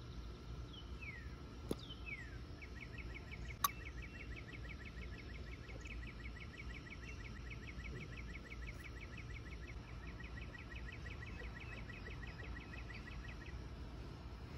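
Faint outdoor ambience with animal calls: two falling whistles near the start, then a long, fast, even trill of repeated notes lasting about eleven seconds. Two small clicks stand out early on over a low steady background.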